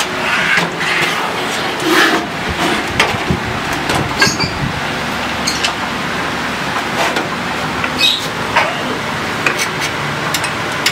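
Screwdriver driving screws into a DVD-ROM drive in a metal computer case: scattered metal clicks and scrapes, over a steady low hum.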